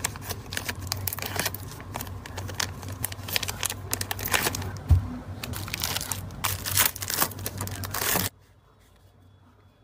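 Clear plastic bags crinkling and acrylic keychains with metal key rings clicking as they are handled and packed, over a low steady hum, with a dull thump about five seconds in. The sounds stop abruptly a little after eight seconds, leaving faint room tone.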